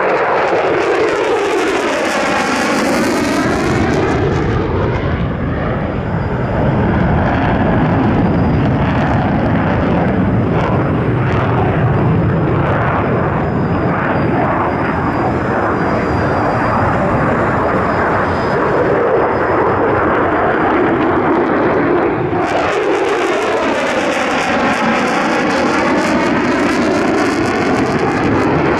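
Jet noise of a Mitsubishi F-2 fighter's single F110 turbofan during a tight, high-g display turn, loud throughout. A hissing, sweeping whoosh sounds near the start and again in the last several seconds as the jet passes.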